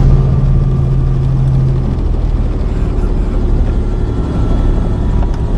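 A vehicle's engine running with a steady low drone and rumble. A low hum in it fades about two seconds in.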